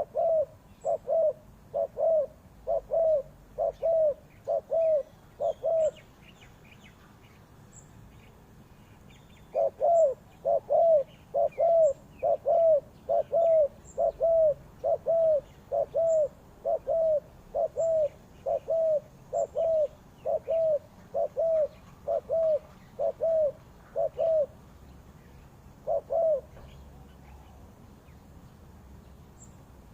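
Spotted dove cooing: a fast string of short, arching coos, about two a second, that pauses for a few seconds, resumes in a longer run, and ends with a single coo after a short gap. Faint high chirps of other small birds are heard behind it.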